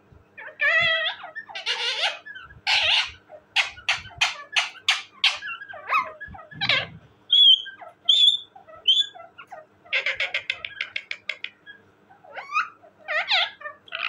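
Indian ringneck parakeet calling and chattering: a run of harsh squawks, a quick string of short sharp notes, a few short whistles midway and a rapid chatter about ten seconds in.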